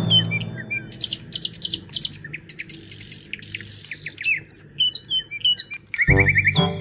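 Birds chirping: a run of short chirps, trills and quick whistled sweeps. Pitched music comes back in about six seconds in.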